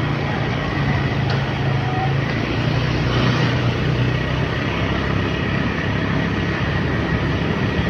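Motorcycle engine running steadily at cruising speed, its low hum under a constant rush of wind and road noise on the microphone.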